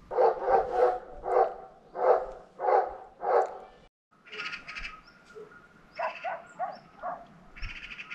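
A dog barking repeatedly, about seven barks in three and a half seconds. After a sudden break, fainter, higher-pitched calls take over.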